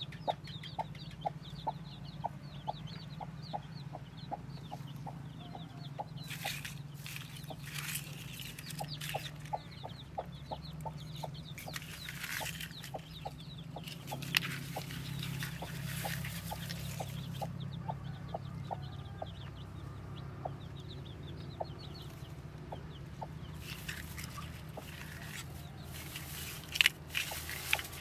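Hen clucking in a steady run of short clucks, about two or three a second, over rustling of dry straw nesting as eggs and shells are handled, with a sharper tap near the end.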